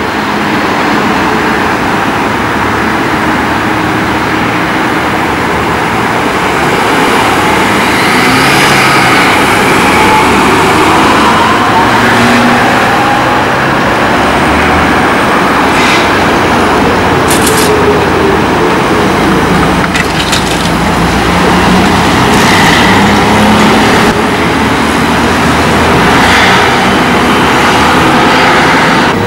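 Street traffic with trolleybuses and cars passing close by: a steady mix of engine and tyre noise, with a few short clicks in the middle.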